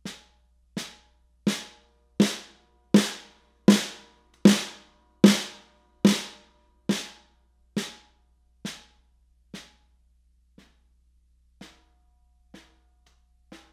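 Ludwig Supraphonic snare drum with snare wires engaged, struck with one stick about once every three-quarters of a second: some seventeen single strokes that swell from soft to loud and back to soft taps. It is tuned for a broad but articulate all-purpose sound, with the wires audibly lifting off the bottom head on the harder hits.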